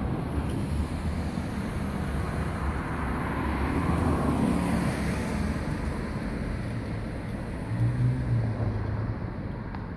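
Steady outdoor background noise, a low rumble with hiss, swelling briefly about eight seconds in.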